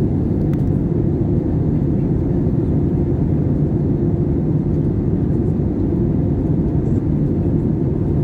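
Airbus A320 on final approach, heard from inside the cabin: a steady, deep rush of engine and airflow noise with a faint even hum.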